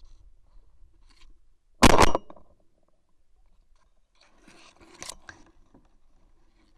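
A single shotgun shot about two seconds in, loud and brief, followed a couple of seconds later by fainter clicking and scraping of handling.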